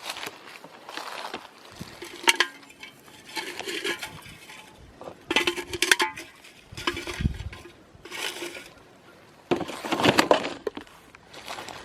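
Discarded cans and bottles clinking and rattling against each other as they are handled, in several separate bursts of clatter with a short ringing clink in some of them.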